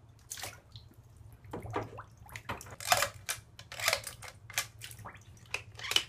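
Bathtub water splashing and sloshing in irregular bursts as a plastic toy is pushed and swished through it by hand.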